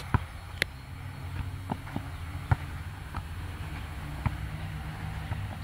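A football being kicked and bouncing on a hard outdoor court during a nohejbal rally: several sharp thuds a second or two apart, over a low steady hum.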